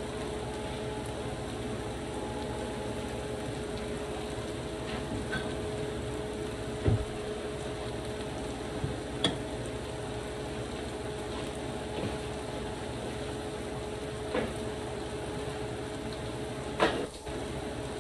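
Salt cod stew sizzling in a frying pan and a small pot bubbling on a gas stove: a steady hiss under a steady hum, broken by a few sharp pops, the loudest about 7 seconds in and near the end.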